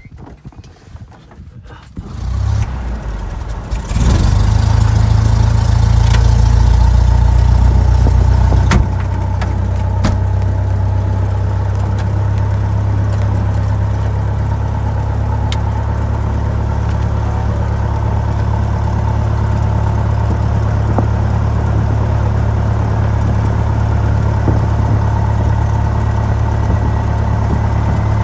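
Cessna F152's four-cylinder Lycoming piston engine heard from inside the cabin. It is started about two seconds in and catches fully about two seconds later. It runs up loud for several seconds, then settles about nine seconds in to a steady, slightly lower drone with the propeller turning.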